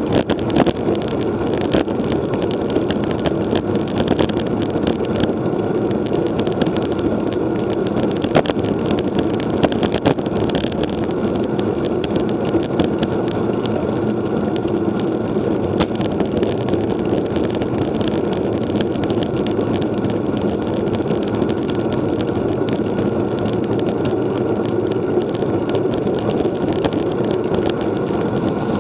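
Steady rush of wind and tyre noise from a road bike riding at speed, heard through a camera mounted on the bike, with many small clicks and rattles throughout.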